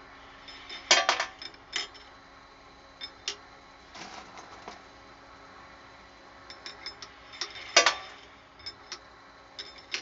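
Brass 300 Blackout cases clinking and clattering as a Bench-Source annealer indexes them through the torch flame, with the loudest clatters about a second in and near eight seconds in and lighter clicks between, over a faint steady hum.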